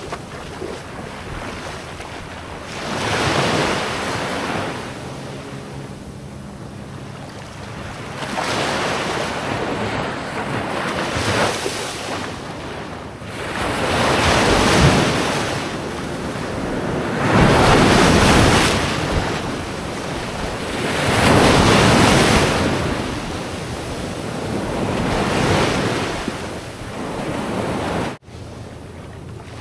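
Waves washing in, rising and falling in swells every few seconds, with wind buffeting the microphone.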